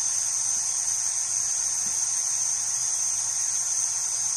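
Vertical multistage booster pump running steadily, giving a high-pitched hiss-like whine over a faint low hum. It is pump number 2 of a two-pump set, cut in automatically by a pressure switch when system pressure fell.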